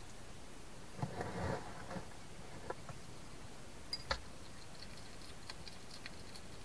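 Hedgehog climbing into a feeding box, with scraping and clicking about a second in and two sharp knocks about four seconds in, then faint quick ticks as it chews food from a plastic dish, over a steady hiss.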